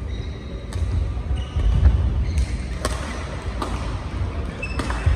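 Badminton rally: several sharp cracks of rackets striking the shuttlecock, at an uneven pace, with short squeaks of shoes on the court mat and the players' footfalls.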